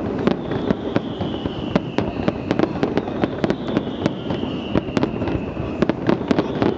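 Fireworks display: a rapid, irregular string of sharp cracks and bangs from bursting shells over a steady low rumble. A high whistling tone falls slowly in pitch, then starts again higher near the end.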